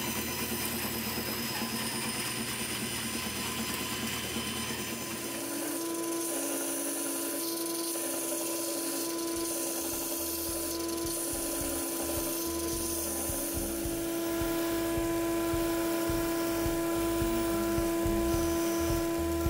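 Woodworking power tools: a band saw cutting plywood disc blanks, a noisy cut for about the first five seconds, then a machine running with a steady hum from about five seconds in. Near the end, a disc sander sands the edge of a round plywood disc.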